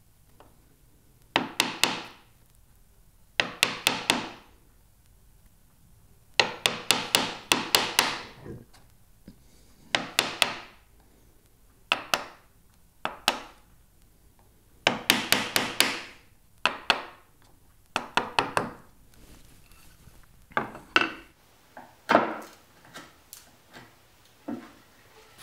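Mallet striking a chisel to chop out the waste between dovetail tails in a wooden board, in short bursts of three to six quick blows with pauses between. The blows get lighter and sparser near the end.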